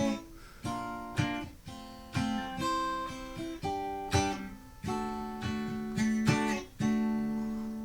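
Guitar played clean, with no effects, through a Sound City Master Lead 50 amplifier: chords and single notes picked one after another, each ringing on.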